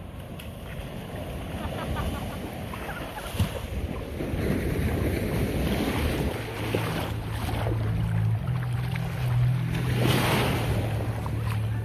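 Wind buffeting the microphone over the wash of surf on a beach, with a stronger surge of noise about ten seconds in. A low steady hum comes in about six and a half seconds in.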